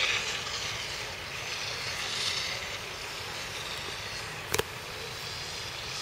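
Steady outdoor background noise of distant vehicles, with one sharp click about four and a half seconds in.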